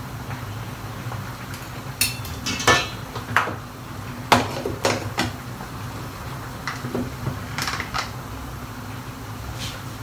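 Kitchen utensils clattering: a spoon and a plastic blender jug being handled and knocked together. A string of sharp clinks and knocks comes about two to five seconds in, and a few more near eight seconds, over a steady low hum.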